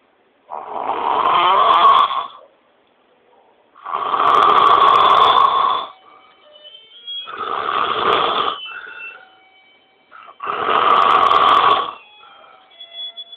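A young man snoring loudly: four long snores, one about every three seconds.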